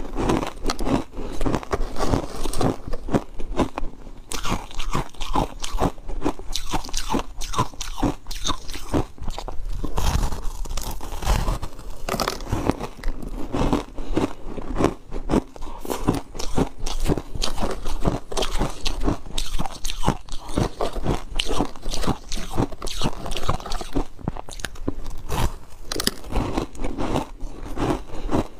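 Ice coated in matcha powder being bitten and chewed right at a clip-on microphone: a dense, irregular run of crisp crunches.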